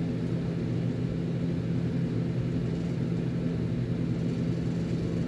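Steady low droning hum of background machinery, unchanging in level.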